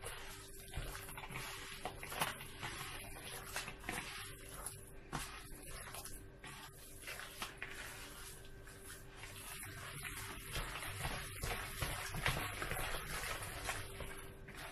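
A bare hand squeezing and mixing wet ground chicken and grated carrot in a plastic bowl: irregular sticky squishing, with small slaps and knocks against the bowl.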